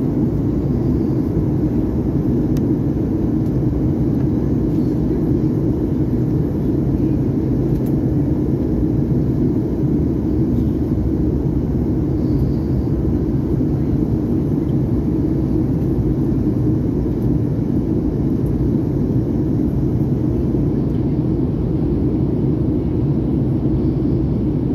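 Steady low cabin drone inside a Fokker 100 airliner in flight, from its two rear-mounted Rolls-Royce Tay turbofan engines and the air rushing past the fuselage.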